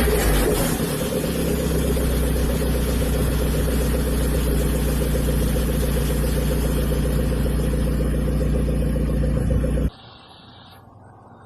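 Hyundai Genesis Coupe 2.0T's turbocharged four-cylinder engine running steadily through its aftermarket exhaust. About ten seconds in it cuts off abruptly, leaving a much quieter steady sound.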